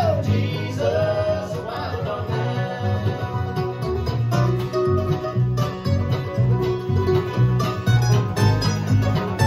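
Bluegrass band playing: banjo, fiddle, acoustic guitars and upright bass, over a steady bass beat.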